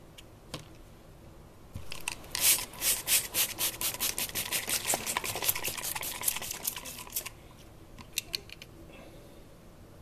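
Plastic trigger spray bottle squirting water onto a small Bluetooth speaker: a quick run of hissing squirts for about five seconds, then a few more short squirts near the end.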